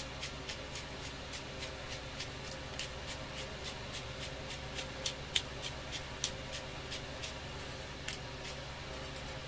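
Manual black pepper grinder being twisted, its burrs cracking peppercorns in a run of short sharp clicks, about three a second, with a few louder cracks around the middle.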